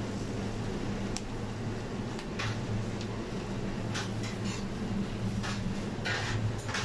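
Steady hum of kitchen ventilation over a charcoal grill, with a few short clicks and clatters scattered through, more of them near the end.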